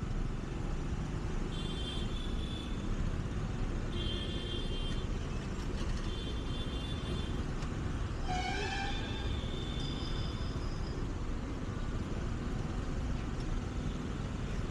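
Steady low rumble of wind and road noise from a scooter riding in city traffic, with vehicle horns honking several times: a few short high beeps, then a fuller, louder horn about eight seconds in.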